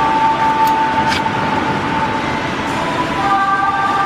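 Steady drone of workshop machinery with several whining tones that shift pitch near the start and about three seconds in, with two short metallic clicks within the first second or so.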